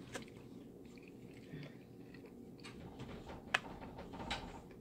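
Quiet sounds of a person eating fried chicken: chewing and handling the food, with scattered faint clicks and one sharper click about three and a half seconds in.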